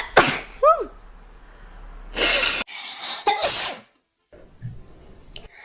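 Three loud human sneezes in quick succession, each from a different cut-together clip. The first, a quarter second in, ends in a falling voiced 'choo'. The second, about two seconds in, cuts off abruptly, and the third follows about a second later.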